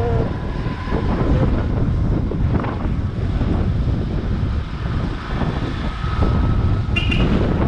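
Wind buffeting the microphone of a motorcycle-mounted camera, with the motorcycle's engine running underneath as it rides along.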